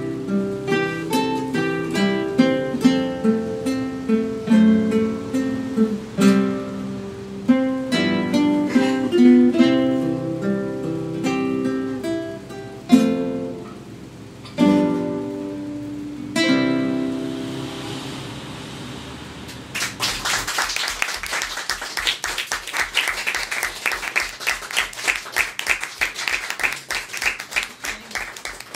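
An ensemble of classical guitars playing a piece of picked notes and chords, closing on a few final chords, the last one left to ring out. About twenty seconds in, an audience starts applauding.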